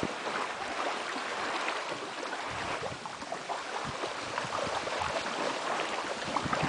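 Lake water lapping and splashing: a steady soft wash of small waves.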